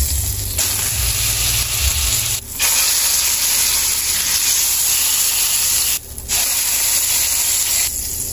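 Steak searing in hot fat in a cast iron skillet: a loud, steady sizzle that breaks off briefly three times.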